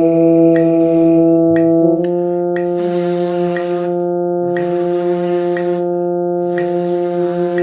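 Steady electronic drone tone from a tuner app with a metronome clicking about once a second; the drone steps up to a higher note about two seconds in. Over it, brass players buzz their lips on mouthpieces and then on bare lips, heard as stretches of rough buzzing hiss.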